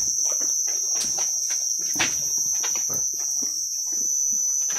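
Sheep chewing chopped grass close up, a run of irregular crunching clicks. Behind it, insects chirring steadily on one high pitch.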